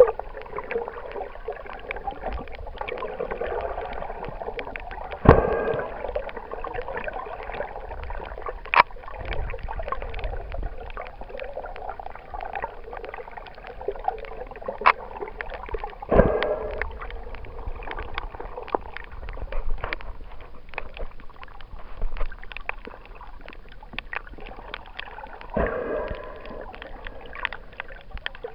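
Water noise picked up by a camera held underwater: a steady watery rush with many scattered small clicks, and three louder surges of water about ten seconds apart.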